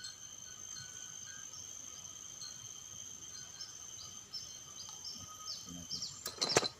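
Outdoor ambience of steady insect buzzing, with a bird giving a quick series of short falling chirps from about halfway in. A few sharp clicks or knocks near the end are the loudest sound.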